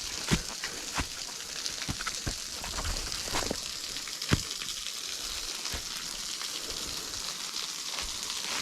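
Steady splashing hiss of a small waterfall running at low flow. A few sharp clicks and knocks sound over it at irregular moments.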